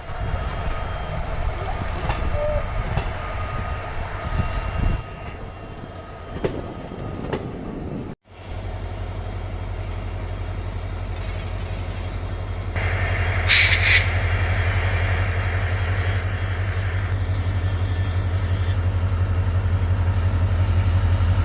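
EMD WDG4 diesel locomotive and its train on the track. After a sudden cut about eight seconds in, the locomotive's 16-cylinder two-stroke EMD 710 diesel engine runs with a steady low throb that slowly grows louder, broken about halfway by a short sharp hiss.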